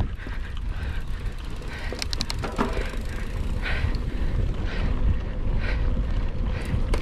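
Mountain bike ridden on a trail, with wind rumbling on the microphone, a rapid run of clicks about two seconds in, and a soft hiss that swells about once a second.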